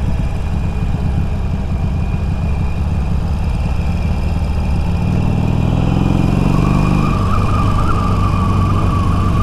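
Harley-Davidson Iron 883's air-cooled V-twin engine running under way on a long downhill ride, a steady low engine sound. About five seconds in the engine note rises, and a higher whine joins it a moment later.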